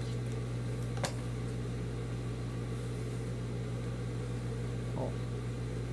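Idle industrial sewing machine's motor giving a steady low electric hum between seams, with one sharp click about a second in.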